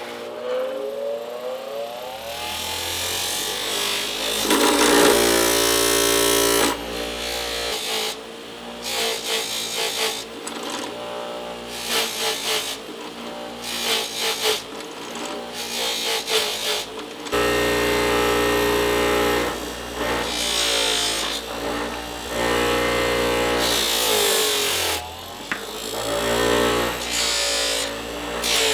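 Motor-driven buffing wheel running while a metal shift knob is polished on it with rouge, its pitch rising in the first two seconds, under background music that changes abruptly several times.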